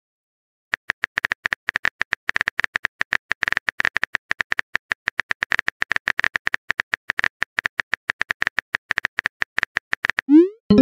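Rapid phone-keyboard key-tap clicks from a texting-app sound effect, as a message is typed out. They stop shortly before the end and give way to a short rising swoosh as the message is sent.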